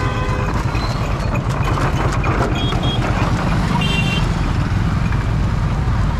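Motorcycle engines running with a steady low rumble, with horns sounding over it: one at the start, two short beeps about two and a half seconds in, and another brief honk about four seconds in.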